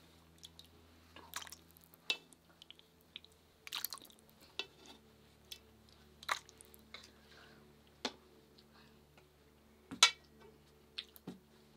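Metal ladle clinking and scraping in a metal stew pot and bowls as broth is ladled out, in scattered short knocks with small splashes; the sharpest clink comes about ten seconds in. A faint steady hum runs underneath.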